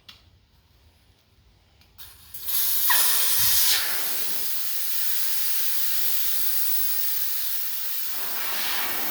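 Air hissing steadily out of a fluid-filled tractor rear tire, starting suddenly a couple of seconds in, loudest at first and then easing to a steady, slightly lower level.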